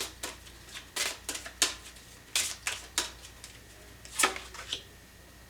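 Tarot cards being pulled from the deck and laid down: a string of separate sharp card snaps and taps, irregularly spaced, the loudest about four seconds in.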